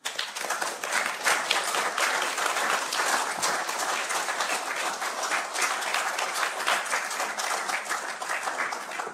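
An audience applauding: many people clapping at once, starting suddenly and thinning out near the end.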